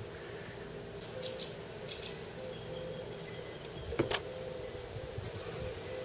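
Quiet outdoor background with a few faint bird chirps, and a sharp double click about four seconds in as parts are handled on the table.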